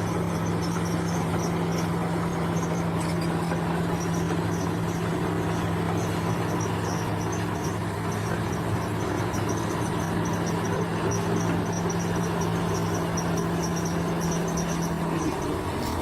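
A heavy construction machine's engine running at a steady speed, with insects chirping in rapid pulses high above it. One of the engine's low tones drops out near the end.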